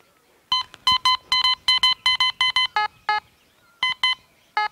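Teknetics Alpha metal detector beeping in short, quick pulses as a 10-rupee coin is passed in front of its search coil, picking the coin up at about 12 inches. Most beeps share one high pitch, with two lower-pitched beeps about three seconds in.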